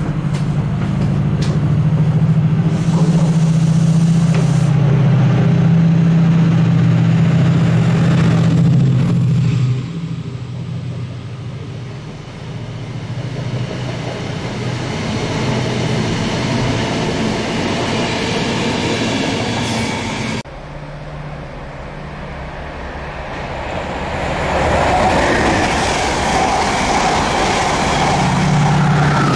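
Class 68 diesel-electric locomotive, with its Caterpillar V16 engine, running under power with a deep, loud drone as it approaches hauling a rake of Mk3 coaches. After about ten seconds the drone drops away and coach wheels roll over the rails; the drone returns near the end as coaches pass close by.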